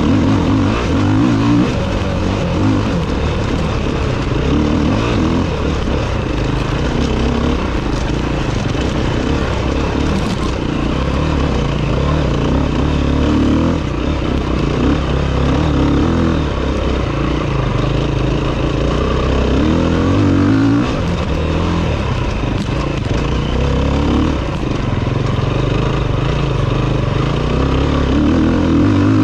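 Enduro motorcycle engine heard from on board the bike, its revs rising and falling again and again as the rider works the throttle through the gears on a dirt trail.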